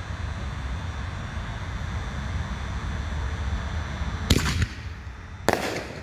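A consumer firework ball shell going off twice, about a second apart, over steady low background noise: first the deep thump of the shell lifting out of its mortar tube, then the sharp bang of the shell bursting overhead.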